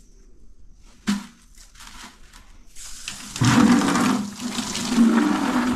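A flush toilet flushing: after a single sharp click about a second in, water rushes loudly into the bowl from a little past halfway and keeps running.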